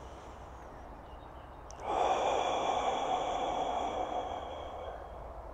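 A long, forceful breath out through the mouth that starts suddenly about two seconds in and fades away over about three seconds, emptying the lungs as far as possible.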